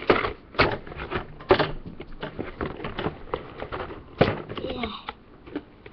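Cardboard toy box being handled and its side flap worked open: an irregular string of sharp knocks, taps and scrapes, the loudest about a second and a half and four seconds in.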